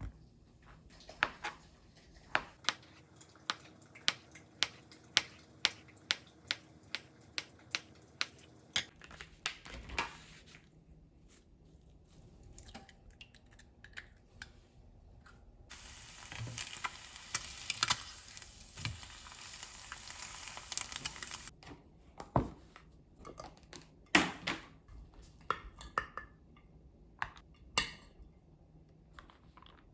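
Kitchen food-preparation sounds: a run of evenly spaced sharp taps, about two a second, then several seconds of steady sizzling hiss about halfway through, then scattered clinks and knocks of utensils and dishes.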